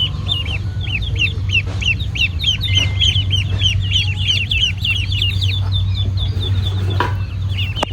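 Ducklings peeping continuously: a chorus of short, high, falling peeps, several a second and overlapping, over a steady low hum. There is a sharp click near the end.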